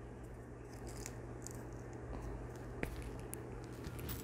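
Quiet room tone with a steady low hum, and a few faint clicks and taps as a plastic Kinder Joy cup and its small plastic spoon are handled.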